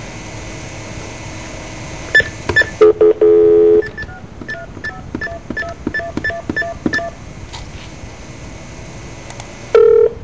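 Telephone line with steady hiss: clicks about two seconds in, a dial tone for about a second, then a quick run of touch-tone (DTMF) dialing beeps, about three a second, and a short tone near the end.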